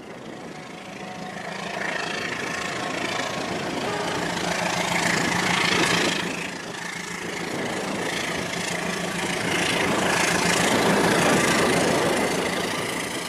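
Toy train running on toy track: a small electric motor hums steadily under the rattle of the wheels. It grows louder about halfway through and again as the train passes close near the end.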